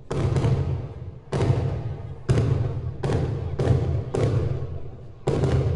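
Fireworks going off in quick succession: about seven sharp bangs, roughly one a second, each followed by a short decaying rumble.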